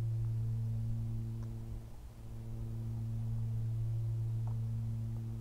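A steady low-pitched hum with a few overtones, dipping briefly about two seconds in and fading near the end.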